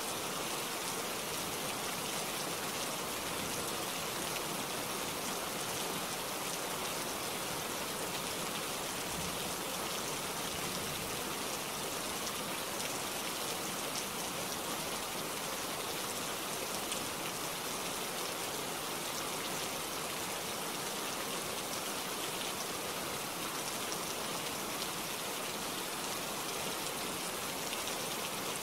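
Steady rain falling on tree leaves: an even hiss flecked with many small drop ticks.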